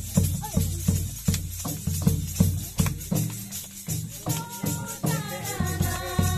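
Double-headed barrel hand drum beaten in a steady, quick rhythm, about three strokes a second. About four seconds in, a group of voices joins in singing a Mundari welcome hymn (swagat bhajan).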